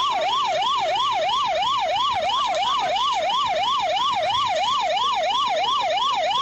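Police car siren on a fast yelp, its pitch rising and falling evenly about four times a second.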